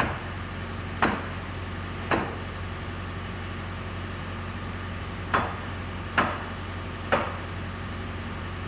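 Hammer blows, six sharp strikes in two groups of three about a second apart with a pause of about three seconds between the groups, over a steady low hum.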